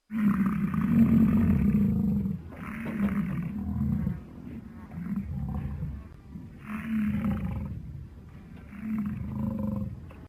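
Dinosaur sound effect for a Centrosaurus: deep, throaty roars. One long loud roar opens, followed by four shorter, fainter growls.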